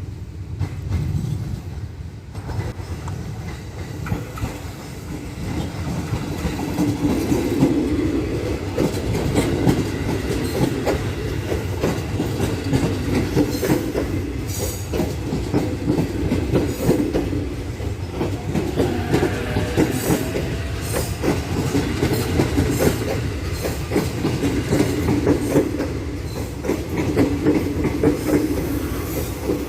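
Tokyo Metro 6000-series electric commuter train (set 6032) running over station points, its wheels clacking over the rail joints and switch in a dense run of knocks above a steady rolling rumble. The sound builds about two seconds in and keeps up.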